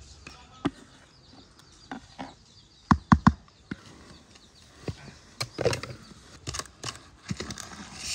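A spatula scraping and stirring in a plastic mixing bowl, folding crushed crumbs into a yellow cream mixture, with scattered clicks of the utensil against the bowl. About three seconds in come three quick, sharp knocks, the loudest sounds.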